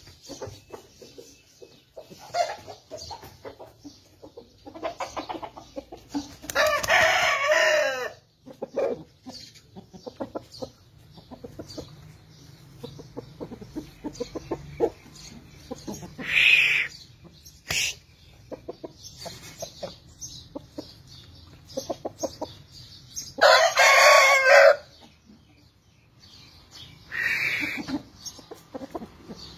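Aseel rooster crowing twice, each crow about a second and a half long, with shorter calls and low clucking in between.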